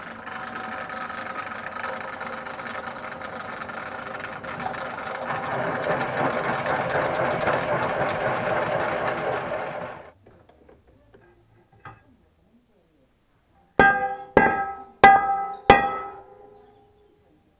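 Clarke pillar drill running with a circular cutter boring through thick steel channel. The cutting gets louder about halfway through, then the drill stops abruptly. After a short pause come four sharp, ringing metallic knocks from the steel piece, about half a second apart.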